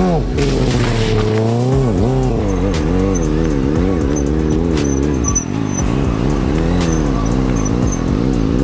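Motorcycle engine revving up and down in a quick regular wobble, about two to three swells a second, as the rider balances the bike on one wheel; the revs hold steadier for a moment midway, then start wobbling again.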